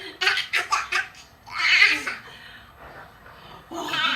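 Laughter: a quick run of pulsed laughs in the first second, a breathy laugh a moment later, and a higher, wavering laugh near the end.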